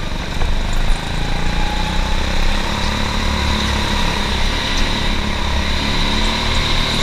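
Go-kart engine running steadily at speed, with the rumble and noise of the kart rolling around the track.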